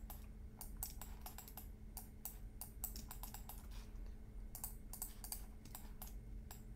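Irregular light clicking of a computer keyboard and mouse, several clicks a second, over a faint steady low hum.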